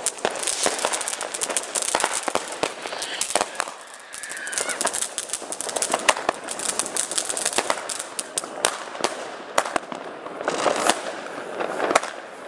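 Fireworks and firecrackers going off: a dense run of sharp bangs, pops and crackles with no let-up, the loudest bang about six seconds in and another cluster of loud bangs near the end.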